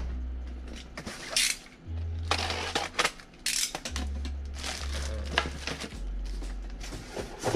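Rustling and scraping of a cardboard box insert and a plastic bag as a boxed figure is unpacked, in irregular bursts over background music with a steady bass line.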